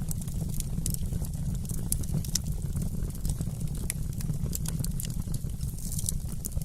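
Wood fire in a fireplace crackling: irregular sharp pops and snaps over a steady low rumble of burning.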